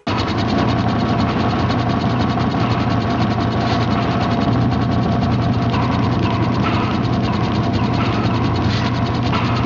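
Rapid, even mechanical clicking over a low steady hum.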